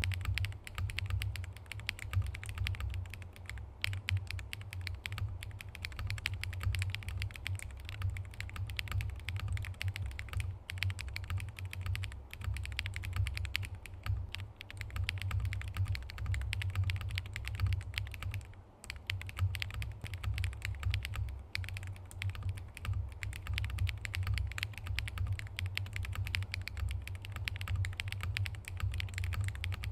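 Fast, continuous typing on a Transition Lite TKL mechanical keyboard with SW x Haimu MP linear switches and glossy KBS Hey8all keycaps: a dense stream of keystroke clacks with a few brief pauses.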